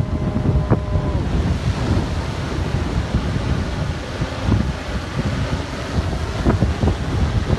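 Strong gusty wind buffeting the microphone: a loud, continuous low rumble broken by sharp pops. A faint steady hum in the background cuts out about a second in.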